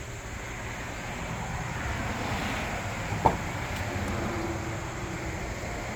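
Outdoor roadside ambience: steady rumble of traffic and wind on the microphone, with one brief sharp chirp that drops quickly in pitch about three seconds in.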